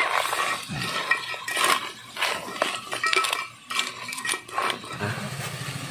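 A metal spoon stirring and scraping in a metal cooking pot of forest crabs, giving repeated irregular clinks and knocks. A low steady hum comes in near the end.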